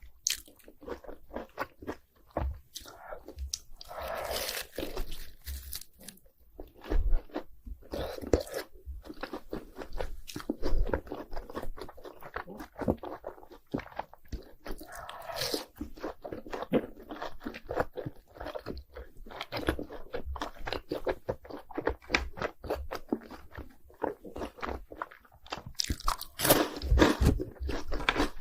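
Close-up crunching and chewing of cheese balls coated in crushed Hot Cheetos: dense, irregular crackling bites. There are louder bursts of crunching about four seconds in, around the middle, and near the end.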